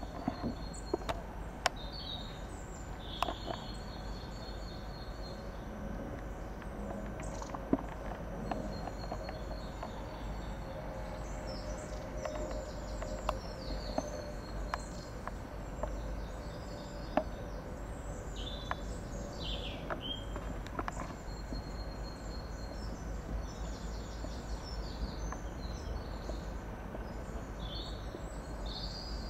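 Outdoor ambience: small birds chirping and calling again and again over a steady low rumble, with scattered sharp clicks and a faint steady hum for several seconds in the middle.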